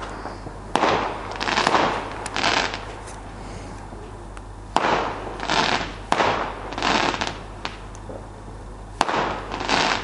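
Fireworks going off in a series of sharp bangs, each trailing away in an echo. The bangs come in clusters, with a short lull in the middle.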